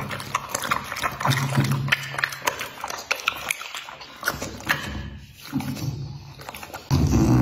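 A bully-breed dog licking and smacking its lips with wet clicks, giving short low grumbling moans, and a louder low grumble starting near the end.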